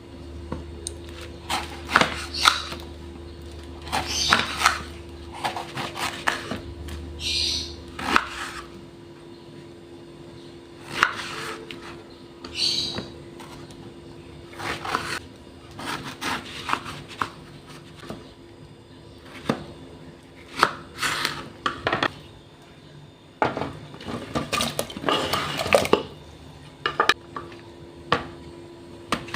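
Kitchen food preparation: irregular knocks and clatters of a knife, utensils and dishes on a wooden board and counter. A steady low hum runs underneath.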